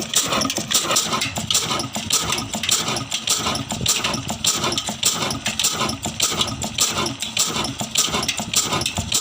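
An old engine running with a rapid, uneven beat of pulses, several a second.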